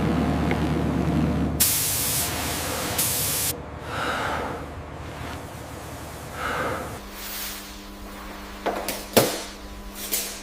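A low machine rumble, then a loud spray hissing for about two seconds, followed by two shorter, softer spray puffs. A steady hum then sets in, with a couple of sharp knocks near the end.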